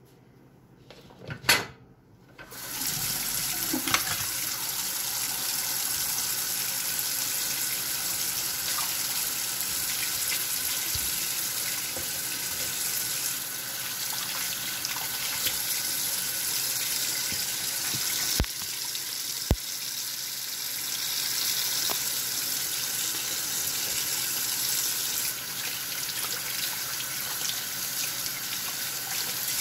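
Kitchen faucet turned on about two and a half seconds in and running steadily into a sink, the stream splashing over hands and small fish being rinsed under it. A sharp knock comes just before the water starts, and two brief clicks sound near the middle.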